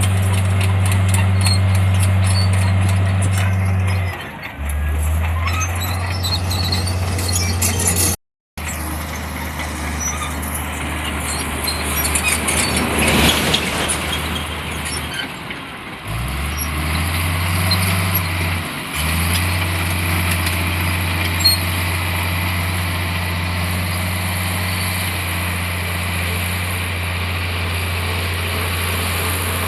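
Diesel engine of heavy earthmoving machinery running steadily under work, its low drone shifting in pitch a few times and rising near the middle. There is a brief dropout about eight seconds in and a noisier stretch of grinding a little after the halfway point.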